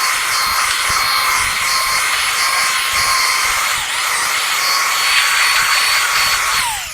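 Ryobi belt sander running steadily with a high whine while sanding a wooden deck handrail, then switched off near the end and spinning down with a falling pitch.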